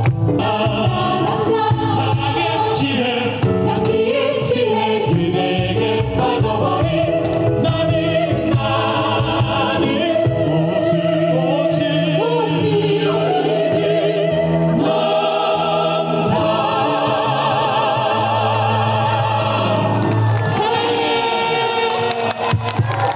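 A choir singing long held notes with vibrato.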